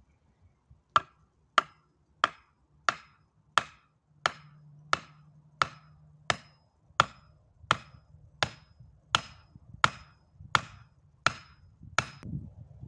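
Axe head pounding the top of an upright wooden pole to drive it into the ground: seventeen sharp knocks, about one and a half a second, each with a faint metallic ring.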